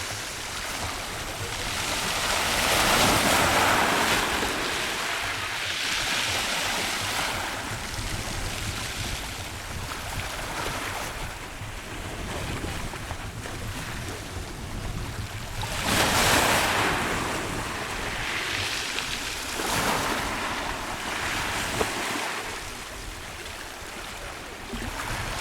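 Rough sea surf: waves breaking and washing in one after another in broad swells, the loudest a little past the middle, with wind rumbling on the microphone.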